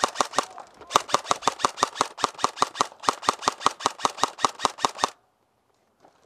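Airsoft gun firing rapid full-auto covering fire, about eight shots a second, with a short break about half a second in, then stopping suddenly about five seconds in.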